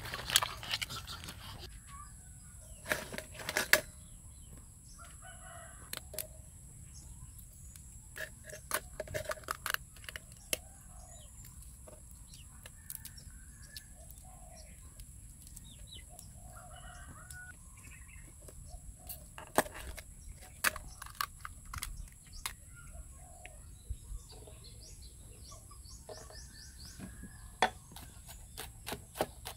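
Chickens clucking, with a rooster crowing, over scattered sharp clicks and knocks from handling food. Near the end there is a quick run of knife chops on a cutting board. A steady high-pitched hiss runs underneath.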